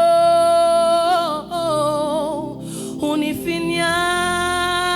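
Solo worship singing: a voice holds long notes with vibrato on a Swahili worship song, with a short break in the middle.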